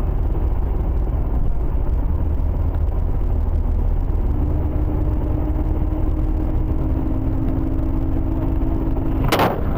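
Steady road and engine rumble inside a car at highway speed, with a droning two-note hum that sets in about four seconds in. Near the end comes a single sudden loud bang.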